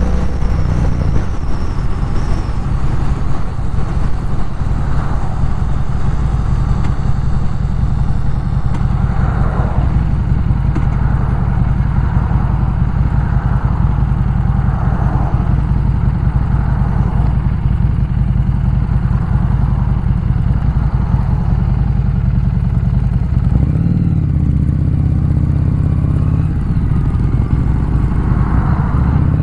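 Motorcycle engine running steadily while riding, heard from the rider's seat with wind and road noise. Near the end the engine note changes as the bike closes on traffic.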